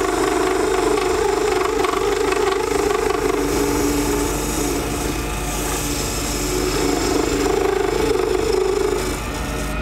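Benchtop lathe running while a hand-held turning gouge cuts a spinning cast acrylic resin blank, peeling off shavings. The cut is steady and strong, weaker for a few seconds in the middle, strong again, and it eases near the end.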